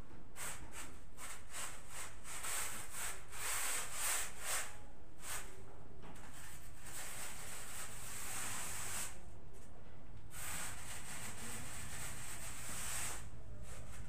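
Hand wiping a wall: repeated rubbing strokes, short and quick at first, about two or three a second, then longer stretches of steady rubbing in the second half with a short pause between them.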